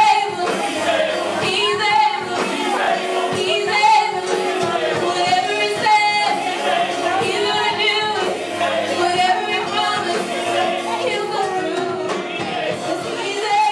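Gospel-style praise and worship singing: voices singing together over music.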